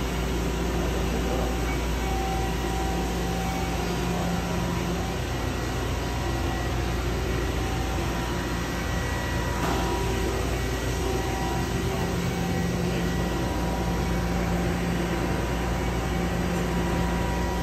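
Mazak VNC-410B vertical machining center running with its coolant flooding the work: a steady mechanical hum carrying several steady tones.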